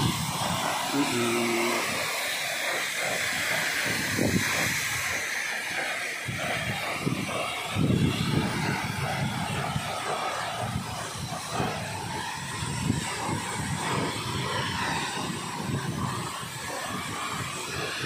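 Steady rushing of a waterfall pouring down a rock face into a rocky pool, with brief low rumbles now and then.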